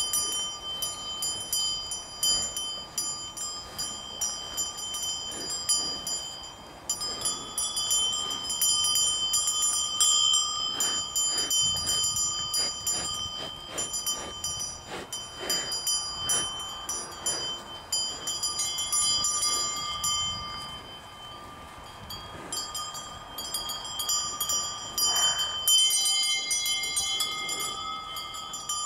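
Several cowbells worn by grazing cattle ringing and clanking close by. Their tones at different pitches overlap in no steady rhythm.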